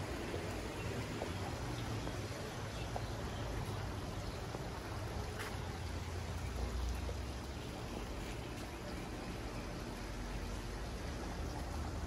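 Tiered garden wall fountain trickling and splashing steadily, over a low rumble.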